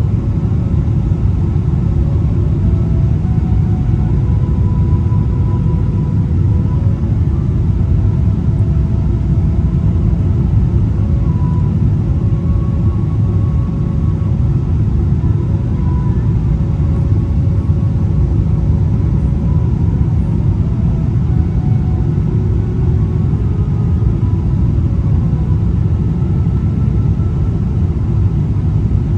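Steady, loud airliner cabin noise heard from a window seat over the wing: the deep rumble of the jet engines and the airflow past the fuselage in flight, with faint engine tones above it.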